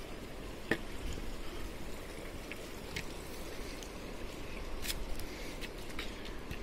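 A steady rush of flowing water in the background, with a few short, sharp clicks and scuffs from footsteps on a stone trail.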